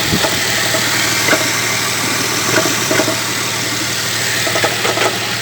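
Car engine idling steadily, with irregular short knocks heard over the running noise: the knock the engine is recorded for.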